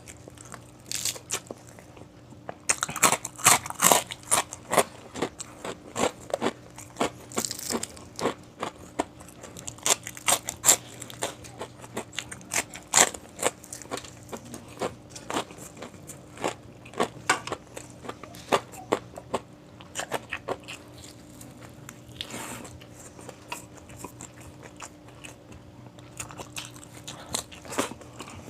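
Close-miked eating: irregular crunching bites and chewing of crispy food.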